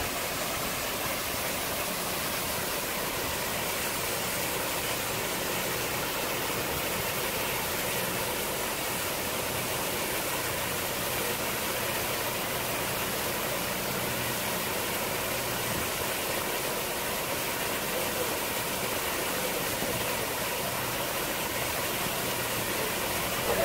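Water jets from a fireboat's deck outlets spraying and splashing steadily onto the lake surface, with a low steady engine hum underneath.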